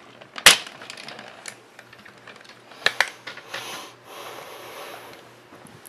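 Hard plastic parts of a DX Siren Lupin Kaiser toy robot being handled and snapped together: a sharp click about half a second in, another near three seconds, then a stretch of plastic scraping.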